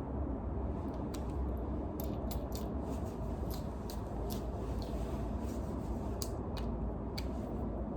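A run of quick, sharp clicks, several a second, starting about a second in, over a steady low rumble.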